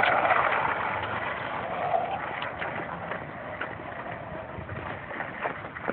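Skateboard wheels rolling over pavement with a dog riding it, loudest at first and gradually fading, with a few light clicks and knocks from the board. The wheels are poor ones that soon stop rolling.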